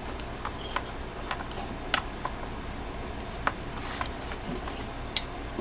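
Irregular light clicks and taps, about eight in all, of small plastic and metal parts being fitted together: a new tub-spout diverter slider and its pull-up stem being worked into place.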